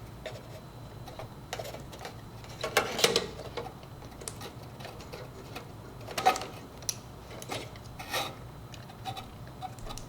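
Scattered sharp clicks and small clatters of insulated wire terminals being pulled off the old grill control board and pushed onto the new one, a cluster about three seconds in and single clicks later, over a low steady hum.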